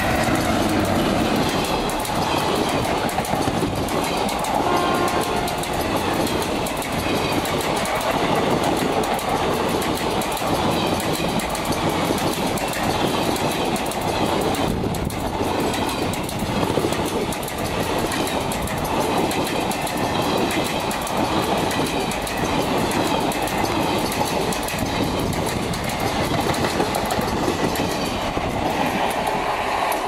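Passenger coaches of an express train, hauled by a WAP-4 electric locomotive, passing close by at speed: a loud, steady rumble with the wheels clattering over the rail joints.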